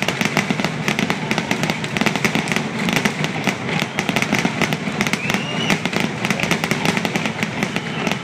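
Aerial fireworks bursting in a rapid, continuous barrage of bangs and crackles with no pause.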